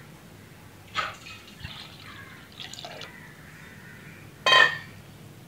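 Wooden spatula stirring watery gravy in a non-stick kadai, the liquid sloshing and dripping just after the water has gone in. There is a sharp sound about a second in, and a louder, short ringing sound near the end.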